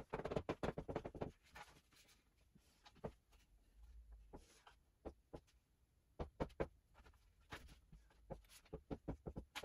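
Dry-erase marker drawing on a whiteboard, played sped up: a faint, irregular run of short squeaks and taps, one for each stroke of the letters and axis ticks.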